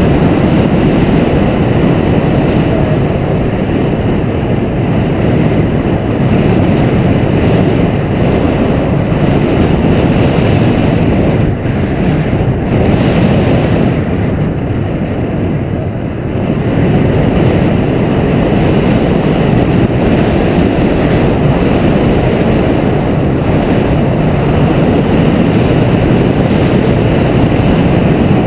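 Loud, steady wind rushing over the microphone of a camera mounted on a hang glider's wing in flight, easing briefly about halfway through.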